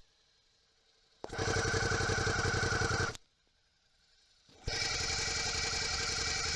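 Suzuki V-Strom 650's V-twin engine running at a steady speed, picked up through a contact microphone. It is heard in two stretches of about two seconds each, starting about a second in and again near the end. Each stretch begins and cuts off suddenly, with silence between them.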